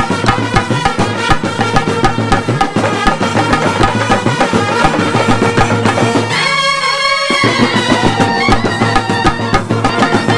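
Street brass band playing a fast tune: trumpets and clarinets over a steady, dense beat of bass drum and snare drums. About six seconds in, the drums drop out for roughly a second while the horns carry on, then the beat returns.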